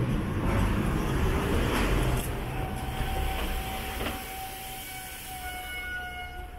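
Street traffic: a motor vehicle rumbles past close by, then a steady high whine with several pitches sets in about two and a half seconds in.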